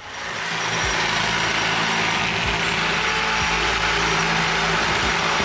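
Oscillating multi-tool cutting through a plastic car battery tray: a steady, loud machine noise with a thin high whine that builds up over the first second.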